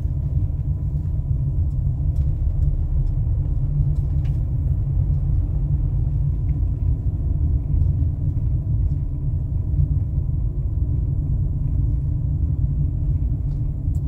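Steady low rumble of a car driving along at low speed, heard from inside the cabin: tyre, road and engine noise, with a few faint ticks.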